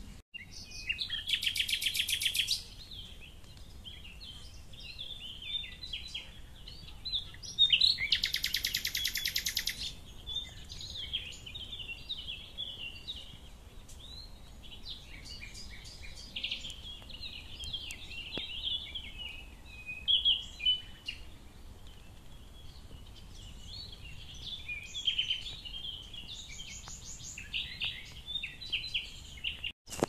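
Several songbirds singing and calling, with many short chirps and phrases. Two loud, rapid trills stand out, one about a second in and a longer one around eight seconds in.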